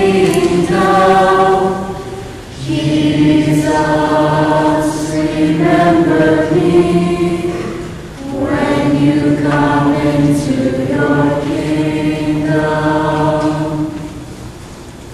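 A choir of mixed voices singing a slow hymn in long held phrases. The singing pauses twice between phrases and stops near the end.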